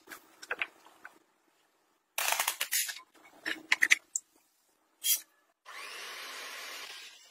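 A spoon scraping and pressing biscuit crumbs into a mould, then short bursts of handling and clinking sounds. Near the end, an electric hand mixer runs steadily for about a second and a half, beating cream.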